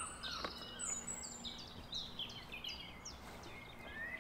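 Songbirds chirping outdoors: a run of short, high, falling notes, with a faint knock about half a second in.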